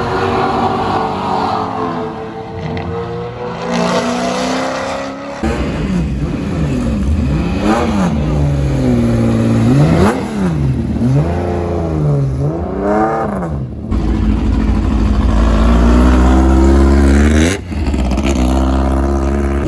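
Race car engines in several short takes. First, sports cars run past on the track, their engine pitch falling as they go by. Then a Datsun 240Z race car's engine is revved again and again, its pitch rising and falling in quick blips, followed by the deep, steady rumble of vintage race car engines running close by.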